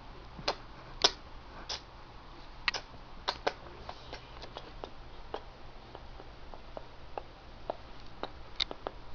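Irregular light clicks and taps of trading cards and their packaging being handled, about a dozen in all, with the sharpest about a second in.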